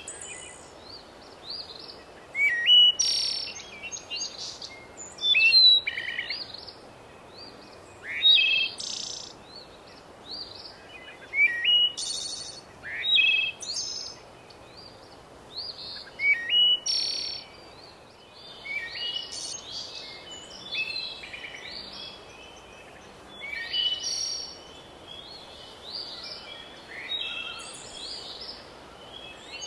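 Songbirds singing in woodland: short, varied, high chirping phrases, repeating every second or two, some with quick rising sweeps, over a steady faint hiss.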